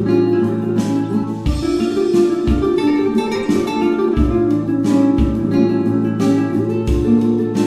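Background music led by plucked guitar, with low bass notes falling at regular intervals.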